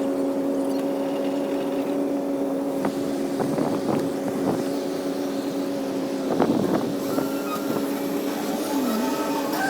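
Diesel engine of heavy earthmoving machinery running steadily at constant speed, with a few knocks and clanks about halfway through.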